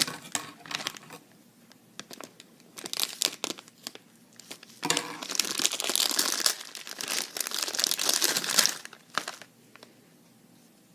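Plastic packaging crinkling and tearing in bursts as a kendama is unwrapped, with a long stretch of rustling in the middle, then quiet near the end.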